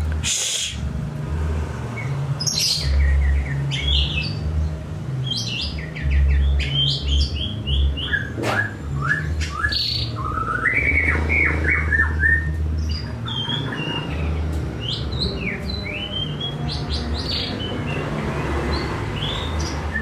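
White-rumped shama singing a run of short, varied whistled phrases, some sliding up and some down in pitch, over a steady low hum.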